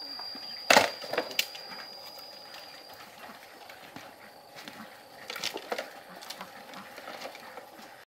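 A loud sharp crack about a second in, followed by a few lighter cracks and knocks, with another cluster about halfway through. A thin steady high-pitched whine runs underneath and fades out about three seconds in.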